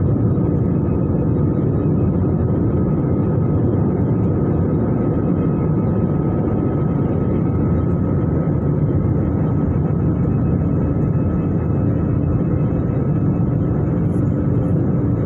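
Airbus A320 cabin noise in flight: a steady rumble of engines and airflow, with a thin, steady high whine over it.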